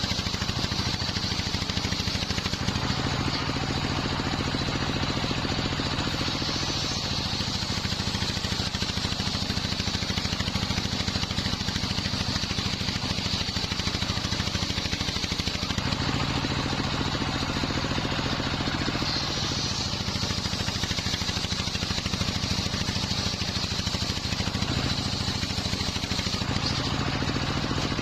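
Engine-driven wide-disc circular sawmill running steadily while cutting nyampoh timber: a continuous engine drone under a high blade whine. The engine note shifts a few times as the saw takes and sheds load.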